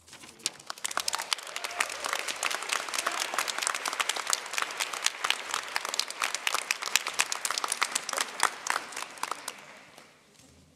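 Audience applauding with many hands clapping; the clapping swells within the first second or two and dies away about ten seconds in.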